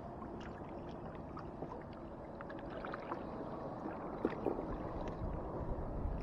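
Water lapping and trickling against a kayak hull, with small scattered clicks and a sharper knock about four seconds in.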